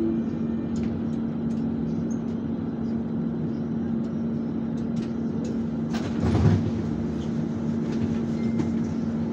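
Alsthom TFS tram heard from inside the car as it runs along the line: a steady hum carrying one constant tone, over rolling noise with scattered light clicks and rattles. About six seconds in comes a louder rumble and clatter lasting around half a second.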